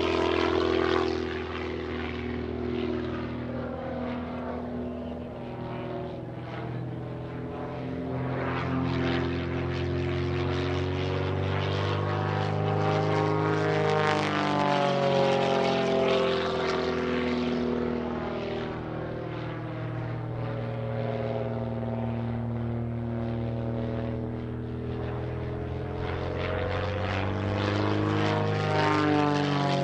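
Pitts S-1S aerobatic biplane's engine and propeller running hard through an aerobatic routine, its pitch gliding up and down and its loudness swelling and fading as the plane dives, climbs and turns. It is loudest about halfway through and again near the end.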